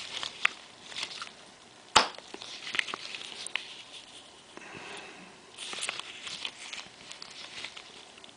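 Small metal parts of a Scotts steering damper being handled and fitted together: scattered light clicks and taps, with one sharp click about two seconds in.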